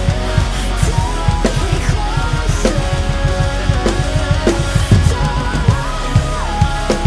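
A rock drum kit played hard along with the band's track: rapid kick-drum strokes from a double pedal under snare hits and cymbals. Held melodic lines bend over the top of the beat.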